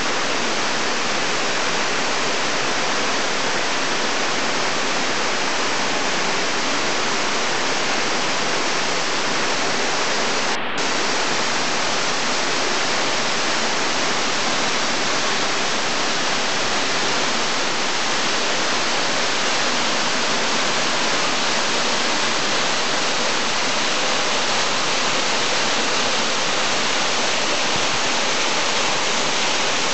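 Seirei Falls, a waterfall, pouring steadily: a dense, even rush of falling water that briefly dips once about eleven seconds in.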